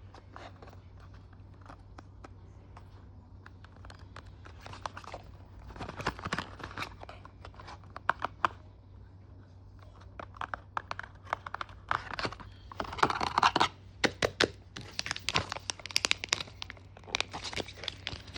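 Product packaging handled and unwrapped by hand, crinkling and tearing in irregular crackles that grow busier and louder about a third of the way in.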